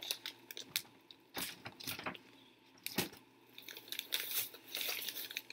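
Plastic packaging being handled: a few sharp clicks and taps, then crinkling for a second or so near the end.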